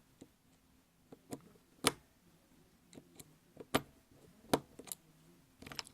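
Scattered sharp clicks and taps of a screwdriver working the screws of a 13 amp plug's plastic casing, about eight at irregular intervals, the loudest about two seconds in.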